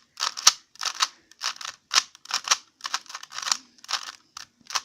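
Rubik's Cube being turned fast in a timed solve: a quick, irregular run of clicks and clacks as the layers snap round, several a second.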